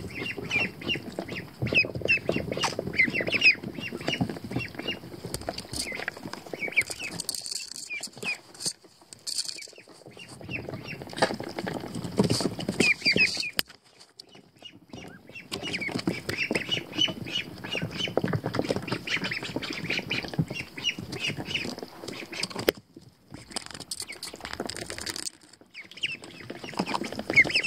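American Pekin ducklings peeping: many short, high chirps in quick runs, over close rustling and knocking as they move about in the wood shavings right beside the microphone. The sound drops away briefly twice, about halfway through and again near three-quarters of the way.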